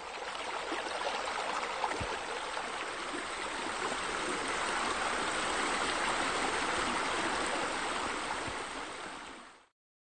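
Pool water features running: a steady rush of splashing water that fades out shortly before the end.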